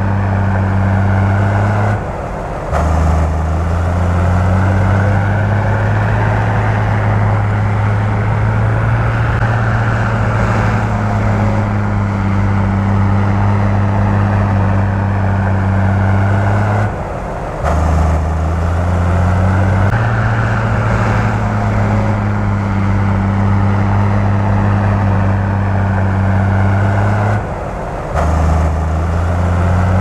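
Heavy diesel machinery engine running steadily with a low drone. The low note drops out briefly three times: about two seconds in, about seventeen seconds in, and near the end.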